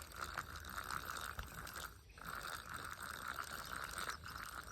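Small Zebco push-button spincast reel being cranked, its gears giving a steady fine clicking whir, with a brief pause about two seconds in.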